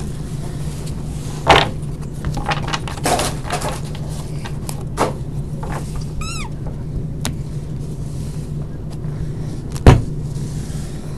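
Trading-card packs and boxes being handled: crinkling of wrappers and a few sharp knocks, the loudest near the end, with a brief squeak a little past the middle, over a steady low hum.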